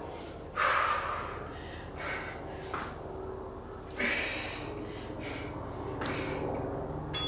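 A woman breathing hard through a set of exercise reps, with about five short forceful exhalations one to two seconds apart. A short, high ding sounds right at the end.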